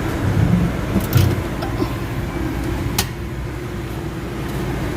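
Car engine idling steadily just after being started, with a few sharp clicks, the clearest about three seconds in.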